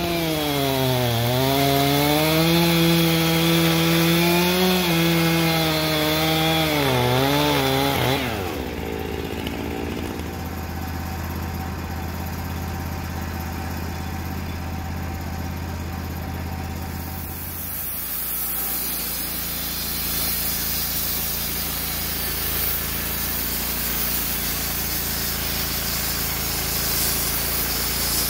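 Wood-Mizer LT35 portable band sawmill cutting through a white oak cant, its pitch dipping and recovering under load for about eight seconds. The cut then ends and the mill runs on at a steadier, quieter hum.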